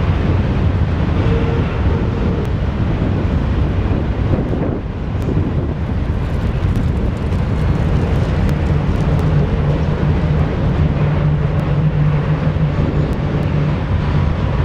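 Diesel locomotives of a Norfolk Southern freight train passing on a downgrade, a steady low drone. A steadier low hum comes in about halfway through as the lead units come by, and it holds as the autorack cars follow.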